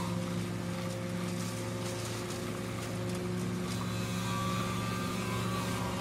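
Wood chipper's engine running steadily, a low even drone with a fainter higher whine that wavers now and then.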